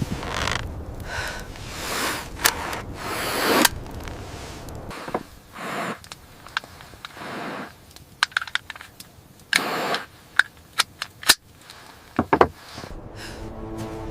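Swells of rushing noise, then a run of sharp cracks and knocks, the loudest grouped about two-thirds of the way through.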